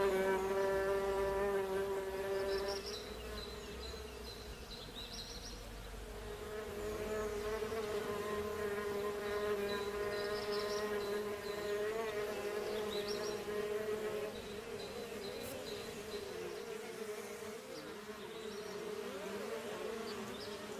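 A bee buzzing in flight: a steady droning hum that fades, swells and fades again as the insect moves closer and farther away, its pitch wavering near the end. A few faint, short high chirps sound in the background.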